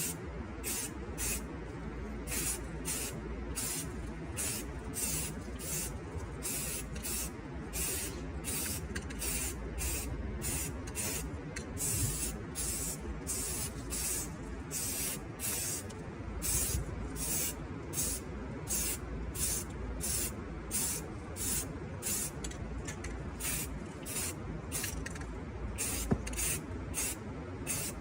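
Paint being sprayed in short, evenly repeated bursts of hiss, about one and a half a second, over a steady low hum.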